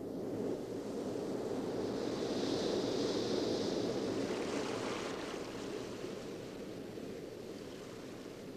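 Ocean surf: the wash of breaking waves swells over the first few seconds, with a hiss at its peak, then slowly eases off and cuts off abruptly near the end.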